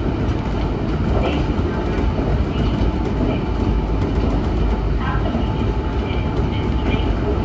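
Steady running rumble of a Kintetsu Osaka Line electric commuter train, heard from inside its front car. Brief faint high squeaks come and go a few times.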